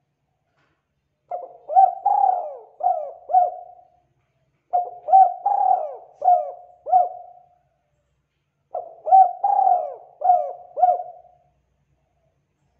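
A caged spotted dove cooing: three repeated coo phrases about three to four seconds apart, each a run of about five short, low notes.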